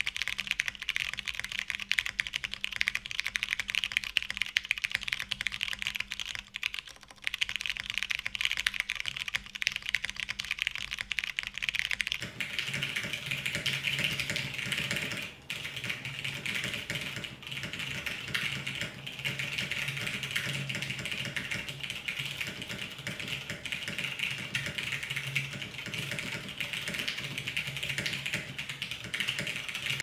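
Steady fast typing on a custom mechanical keyboard: a Hiney Ibis case with polycarbonate plate, Cherry Ergo Clear tactile switches lubed with 105 oil, and XMI keycaps, giving a dense stream of key clacks. It pauses briefly about seven seconds in and again near fifteen, and from about twelve seconds in the sound turns fuller and deeper.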